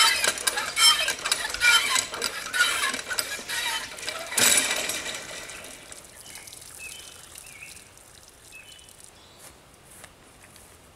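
Camping gear being handled during tarp setup: a rapid ratchet-like clicking and rustling, loud for about the first five seconds, then dying down to quiet with a few short high chirps.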